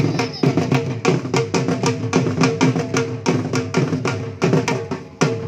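Dhol drumming in a fast, driving rhythm for the Attan dance, several strikes a second.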